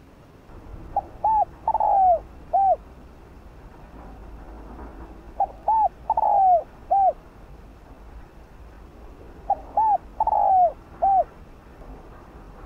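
Spotted dove singing its cooing song three times, about four seconds apart. Each phrase is a couple of short coos, a longer rolling coo that falls in pitch, and a final short coo.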